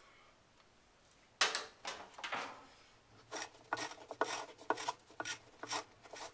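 Ratchet wrench with a 7/16-inch socket backing out a bolt inside a washing machine: a run of short rasping ratchet strokes, about two a second, starting after a quiet first second or so.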